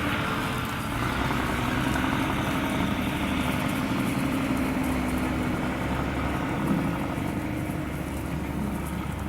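An engine idling steadily: an even low hum under a steady rushing noise.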